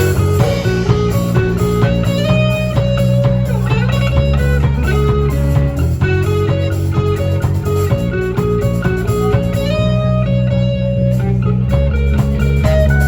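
Music led by guitar playing a melody, including a bent note about four seconds in, over sustained low bass notes that change every couple of seconds.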